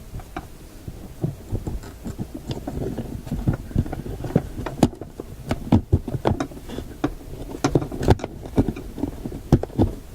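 Irregular small clicks and knocks of parts and tools being handled during hands-on work on a radio's dial assembly, sharper and more frequent in the second half.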